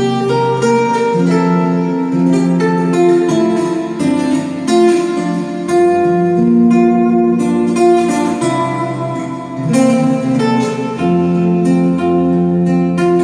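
Nylon-string classical guitar played fingerstyle as a solo instrumental: a plucked melody over bass notes.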